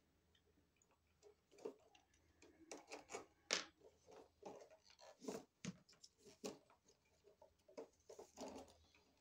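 Faint, irregular small clicks and scrapes of hands working an electrical outlet and its wires, as a wire is taken off the outlet.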